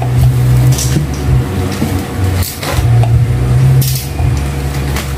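A steady low rumble runs under the scene, with plastic bubble-wrap packaging rustling and crinkling now and then as it is pulled off a dish rack.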